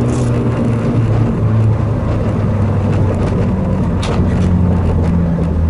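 Peugeot 106 Rallye's four-cylinder engine running steadily at low revs, heard from inside the stripped rally cabin as the car rolls slowly. A brief click about four seconds in.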